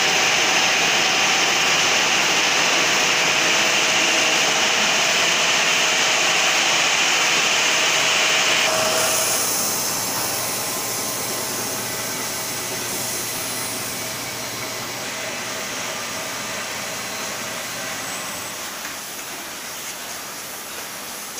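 Yarn warping machine running, a steady high whirring hiss of the turning beam and its drive. About nine seconds in it drops suddenly to a quieter, duller whir.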